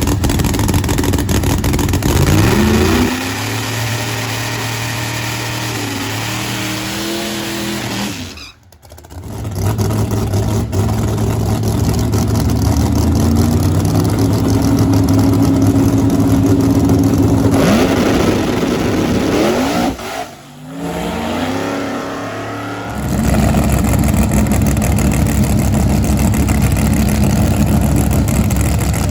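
Drag race car engine running loud and being revved up and down several times, its pitch rising and falling with each rev, with two brief drops in sound.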